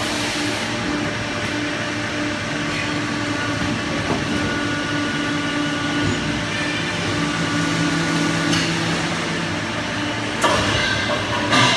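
CNC pipe bending machine running through a bend of a metal pipe: a steady machine hum with higher tones that come and go as its motors drive the bend, and two short sharp noises near the end.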